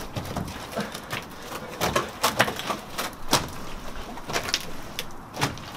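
Sticky slime on a fibreglass pool floor, clicking and snapping irregularly as it is peeled up by hand and stepped in with bare feet.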